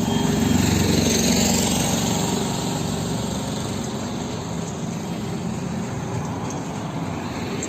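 A machine with an engine or motor running steadily, with a rapid low pulsing, slowly growing quieter.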